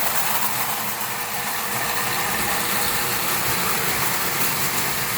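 Several O gauge electric toy trains, including prewar Marx Commodore Vanderbilt locomotives, running steadily on the track: a continuous mechanical running noise with a constant hum.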